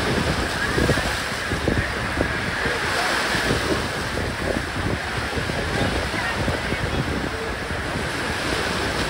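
Surf washing on the beach, with wind buffeting the microphone in short gusts.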